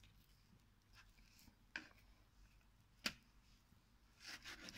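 Kitchen knife cutting raw pork tenderloin on a plastic cutting board: two faint knocks of the blade on the board, then a quick run of short scraping strokes near the end.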